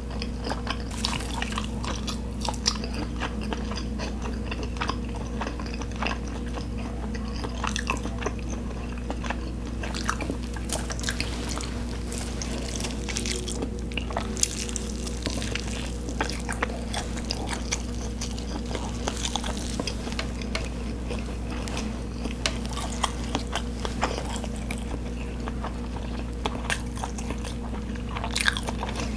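Close-miked chewing and biting: a person eating, with irregular wet mouth clicks and soft crunches throughout, over a steady low hum.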